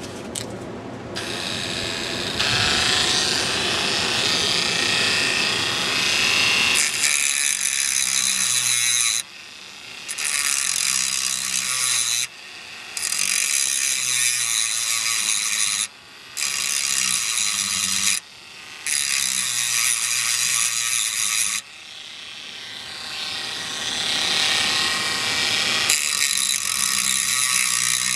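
Handheld rotary tool with an abrasive cutoff disc grinding into the steel receiver of an AK rifle to open up its magazine well: a loud, harsh grinding of the disc on metal over the whine of the tool's motor. The grinding breaks off briefly about five times and picks up again.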